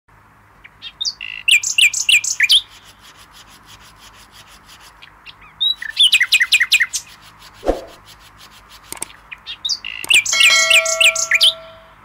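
Songbirds chirping in three bursts of quick, high, falling notes, about a second in, around six seconds and from ten seconds, over a steady faint hiss. A soft knock falls just before eight seconds, and near the end a few steady held tones ring under the chirps.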